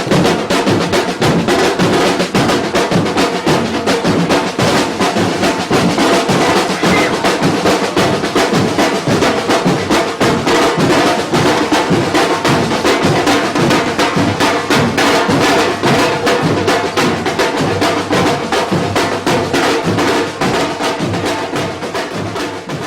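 Afro-Brazilian batuque percussion ensemble drumming a fast, dense rhythm on several drums. The playing fades out near the end.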